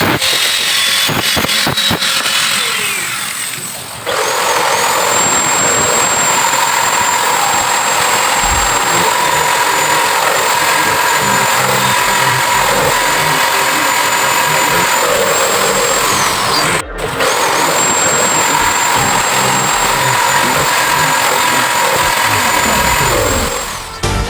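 Electric power tool running steadily with a high whine. About two-thirds of the way through it winds down, cuts out for a moment and spins back up. The first few seconds hold a different, more broken-up sound.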